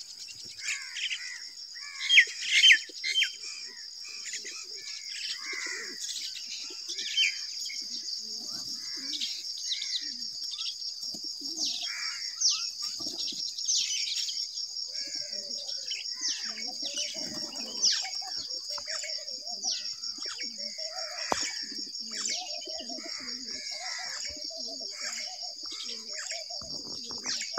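Birds calling: small birds chirping while rock pigeons coo, with now and then a flutter of wings, over a steady high-pitched drone.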